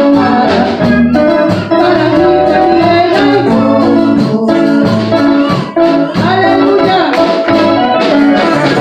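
A live worship band playing loudly: a keyboard with an organ sound holds chords over drums and electric guitar, with a voice singing over them.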